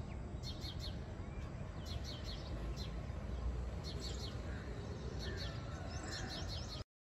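Small birds chirping outdoors in short groups of quick, falling chirps, repeated every second or so, over a steady low rumble of background noise. The sound cuts off abruptly just before the end.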